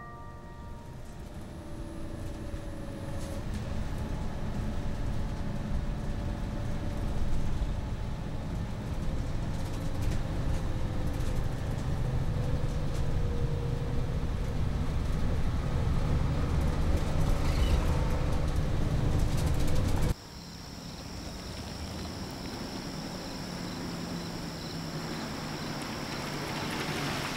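Bus running along a road, heard from inside the cabin: a low engine and road rumble that slowly grows louder. About two-thirds of the way through it cuts off suddenly to a quieter, more distant engine hum with a steady high-pitched drone above it.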